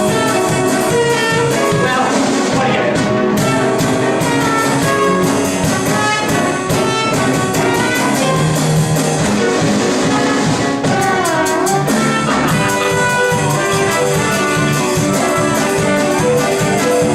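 Upbeat, jazzy show-tune music led by brass, with a steady beat and no singing.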